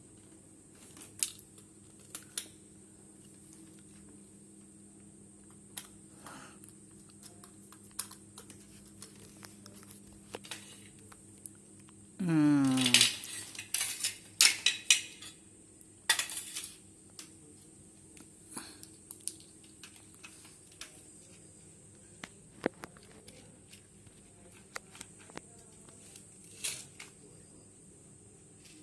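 Scattered light clicks and clinks of small hard objects, typical of tools and electronic parts being handled on a workbench. About twelve seconds in there is one short call falling in pitch, the loudest sound, followed by a flurry of clinks.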